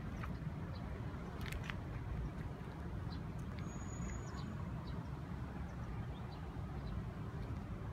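Steady low background rumble with a few faint, short high chirps scattered through it.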